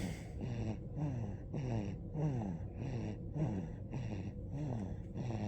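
Loud snoring: quick, even, rasping breaths about twice a second, each carrying a whistle-like tone that slides down in pitch.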